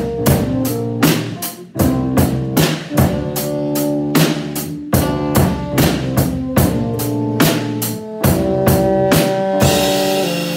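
Acoustic drum kit and electronic keyboard playing a slow groove: regular kick, snare and cymbal hits over sustained keyboard chords. The drums stop near the end, leaving a held keyboard chord ringing.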